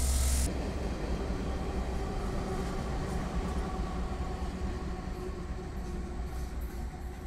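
Union Pacific freight train passing: a diesel locomotive's engine running over a steady rumble of wheels on rail. A louder passage of rolling cars cuts off about half a second in.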